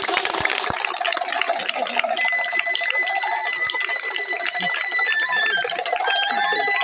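A crowd of people clapping, with a shrill warbling, trilling tone over it; a steady high note holds for a couple of seconds in the middle.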